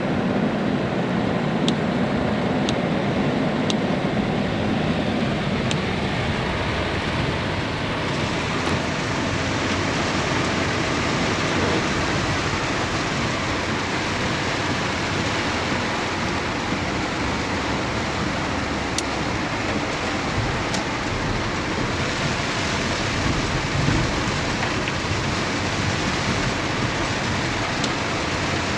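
Heavy rain pouring steadily onto surfaces, a dense even hiss, with a low engine hum under it in the first few seconds.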